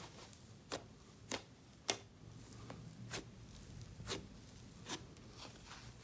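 Fluffy slime being kneaded and stretched by hand, giving faint sticky clicks and pops about once a second as it is pressed and pulled apart.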